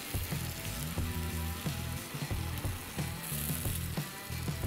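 Gummy candy sizzling as it melts against a red-hot metal ball, over background music with a steady beat.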